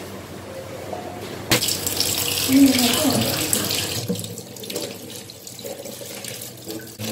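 Kitchen tap running into a stainless steel sink while raw meat is rinsed by hand under the stream. The water comes on suddenly about one and a half seconds in and runs loudest for a couple of seconds, then softer.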